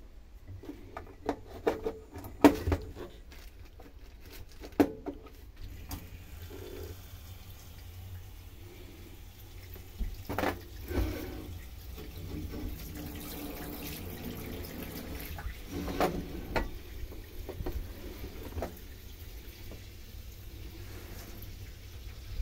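Water running from a kitchen faucet into a stainless steel sink. The flow is driven by a 50-litre pressure accumulator tank rather than an electric pump. Sharp clicks and knocks from handling the faucet come in the first few seconds, with a few more knocks later.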